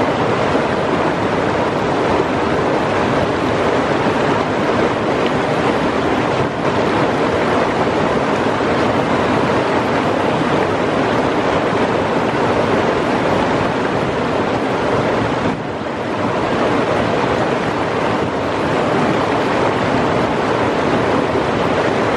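Fast mountain river rushing over rocks through whitewater rapids, a loud steady rush that dips briefly about sixteen seconds in.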